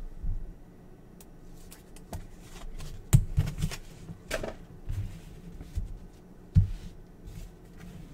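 Trading cards and packs being handled on a table: scattered soft taps and knocks, a few of them sharper.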